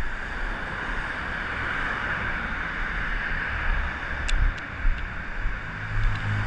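Steady city traffic noise from cars passing on the road beside the camera, with low wind rumble on the microphone. There are a couple of short clicks about four seconds in.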